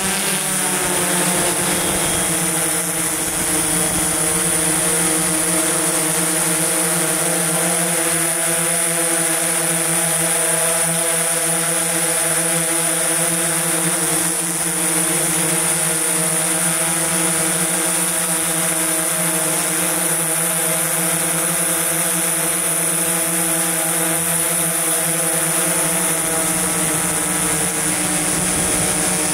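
DJI S1000+ octocopter's eight electric rotors running in steady flight: a loud hum of several steady tones with a thin high whine above.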